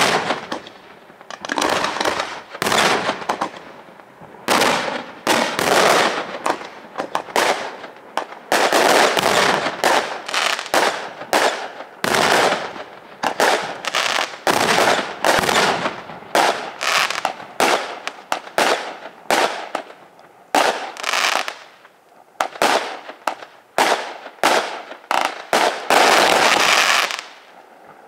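Fireworks display: aerial shells bursting one after another in quick succession, the bangs trailing off in crackling from glitter stars. A dense, loud flurry of bursts comes shortly before the end.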